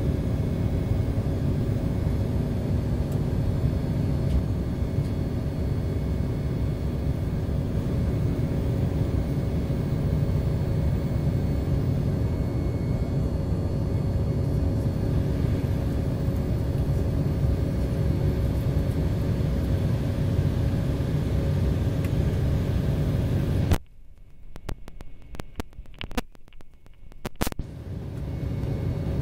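Steady cabin rumble of an Embraer 190 climbing after takeoff, its CF34 turbofans running, with a faint steady hum over the low roar. About three-quarters of the way through the sound cuts out suddenly for about four seconds, leaving only a few clicks, then comes back.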